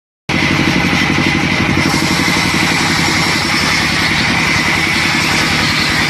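Large sawmill band saw running and cutting lengthwise through a log: a steady machine drone with a fast low pulsing, a steady high whine and the hiss of the blade in the wood.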